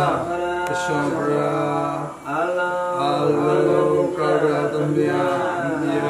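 A man's voice chanting a Buddhist merit-sharing recitation in long, steady held notes, line after line, with a short breath about two seconds in.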